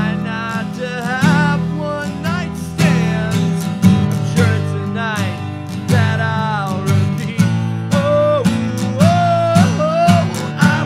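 Man singing with his own strummed acoustic guitar, the voice holding and bending long notes over a steady strum.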